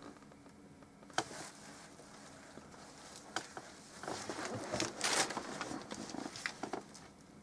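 Handling noise from oil-painting work: a few sharp taps and clicks, one about a second in and another about three seconds in, then a rustling, scraping stretch of about two seconds.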